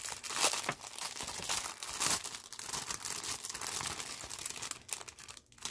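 Clear cellophane bag crinkling and crackling as it is handled and opened, a dense run of crackles that dies away near the end.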